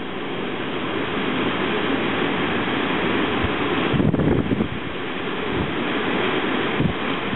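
Heavy rain and strong wind of a post-tropical storm, a steady rushing noise. Gusts surge about four seconds in and again near the end, buffeting the microphone.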